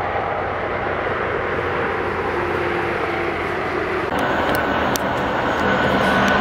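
Semi-truck traffic on an interstate grade: diesel engines and tyres making a steady drone. About four seconds in the sound changes abruptly to a closer, louder tractor-trailer, with a faint high whine and a few sharp clicks.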